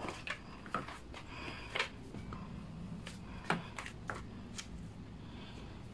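Sandals stepping on a tile floor: a handful of short taps and scuffs, irregularly spaced.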